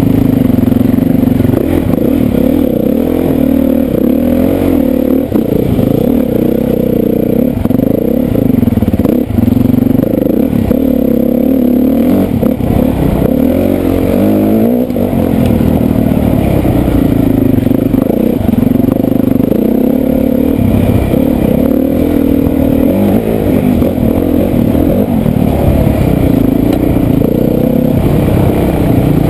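Dirt bike engine heard from on the bike, running hard on a woods trail, its pitch rising and falling every second or two as the throttle is opened and rolled off.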